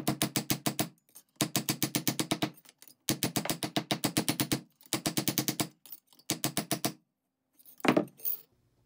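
Hammer beating a steel fork flat against a steel plate: five runs of rapid metallic blows, about nine a second with short pauses between, then a couple of heavier strikes near the end.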